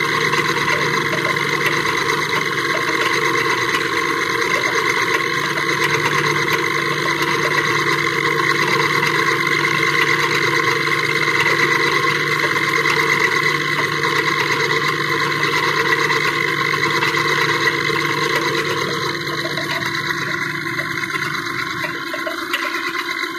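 A gear-cutting machine tool running steadily, a constant mechanical hum with several steady tones above it. Near the end the low hum drops away and the sound thins.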